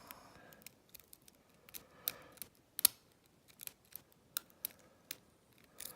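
Lock pick and tension wrench working the pin tumblers of an old American Lockwood lock cylinder: scattered small metallic clicks and scrapes at an irregular pace, the sharpest nearly three seconds in.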